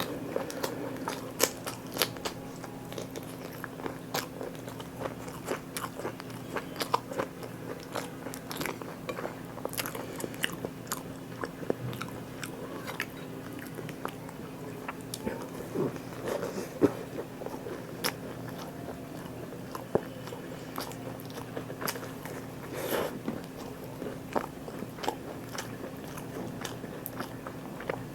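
Close-miked eating: a person biting and chewing food, with irregular crunchy clicks all the way through. A low steady hum sits underneath.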